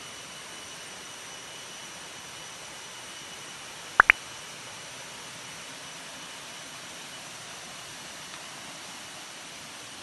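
Steady hiss of a small waterfall spilling into a pond, with two loud, quick rising chirps close together about four seconds in.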